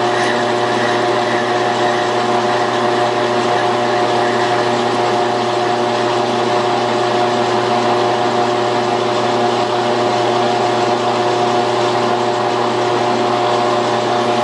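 Metal lathe running at a steady speed with a constant gear whine, while a homemade cone-cutting attachment takes a slow finishing pass on spinning aluminium round stock.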